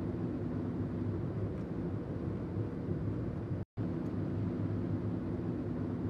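Steady low car engine and road hum heard inside the car's cabin. It breaks off for a moment about three and a half seconds in, then carries on unchanged.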